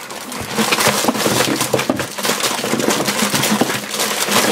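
Dozens of wrapped candy bars and foil blind bags pouring out of a plastic pumpkin pail onto a table: a continuous crinkle and rustle of plastic and foil wrappers, with many small clicks as the packages tumble and land.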